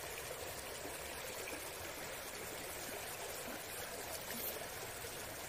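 Shallow rocky stream running, a steady faint rush of water with no distinct splashes.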